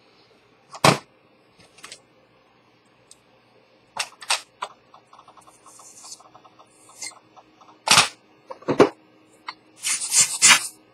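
Close-up handling noise of a metal pocket-watch case: a series of sharp clicks and knocks, loudest about a second in and again around eight and nine seconds in, with faint fast ticking in the middle and a burst of rubbing near the end.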